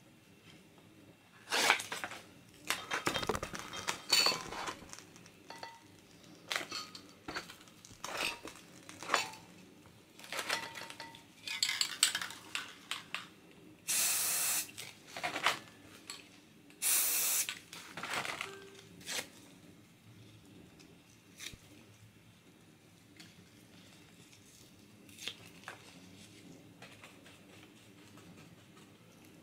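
Aerosol spray-paint cans clinking and knocking as they are handled, with two short hisses of spray near the middle.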